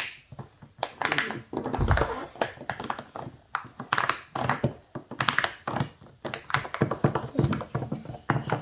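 Small plastic fidget toys being handled, giving irregular clicks and taps in quick succession.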